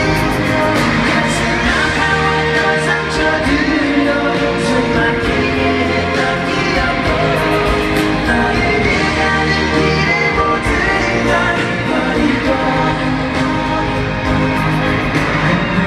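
Live pop band music with singing, heard from within the audience of a large arena.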